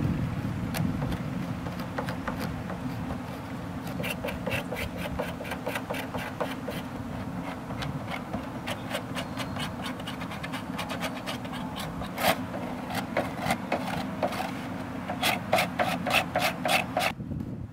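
Quick, scratchy strokes of a drawing stick rubbed hard back and forth over a sheet laid across a car's body, taking a frottage rubbing of its grille and panels. The strokes come faster and sharper in the last few seconds and stop just before the end.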